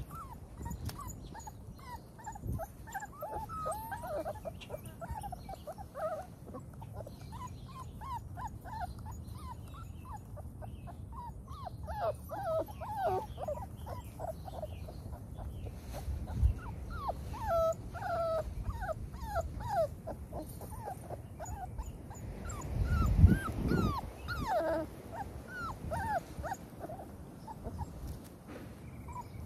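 A litter of six-week-old XL pitbull puppies whining and whimpering, with many short high cries overlapping throughout. About two-thirds of the way through there is a louder low thump.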